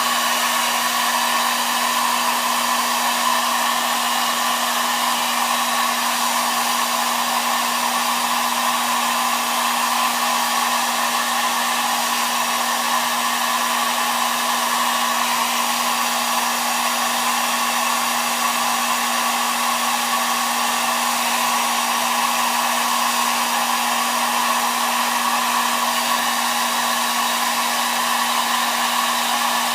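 Hot-air blower running steadily: a loud, even rush of air with a steady low hum underneath, warming a phone's glass to soften the adhesive for separation.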